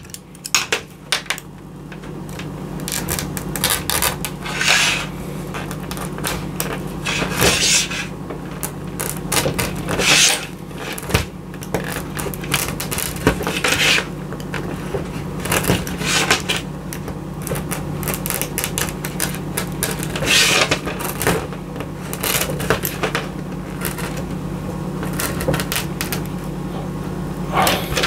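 Box-cutter blade scraping and slicing the rubber jacket of an RG6 coaxial cable, in irregular scratchy strokes mixed with the rustle of the cable being handled, over a steady low hum.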